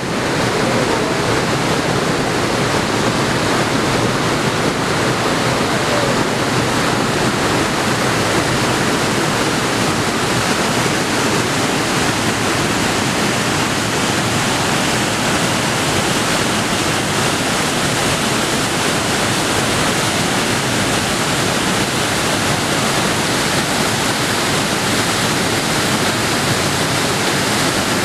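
Steady rush of white water tumbling over rocks in a rocky forest stream.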